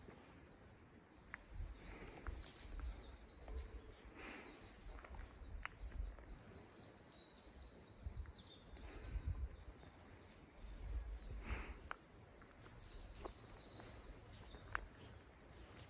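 Quiet outdoor ambience: faint bird chirps over an uneven low rumble, with a few short rustles and clicks.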